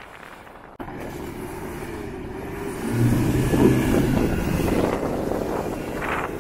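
A 4WD ute's engine revs hard under load while its tyres spin in soft sand: the vehicle is bogged trying to pull a caravan through a sandy dune track. The engine note builds, is loudest for a couple of seconds in the middle, then eases off.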